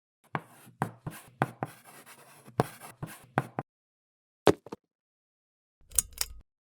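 Irregular sharp knocks with scratchy scraping between them, about eight in the first three and a half seconds, then a single knock and, near the end, a quick double knock.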